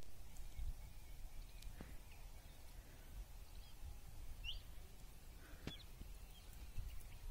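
Quiet open-field ambience: a low rumble of wind on the microphone, with a few faint bird chirps, the clearest a short rising chirp a little past halfway.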